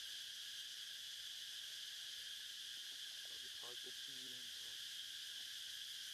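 Steady, high-pitched drone of a chorus of insects, with faint pitched sounds for about a second around the middle.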